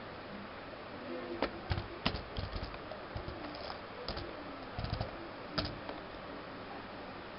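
Dell laptop keyboard keys typing a password: an irregular run of soft clicks starting about a second in and ending a little before the end.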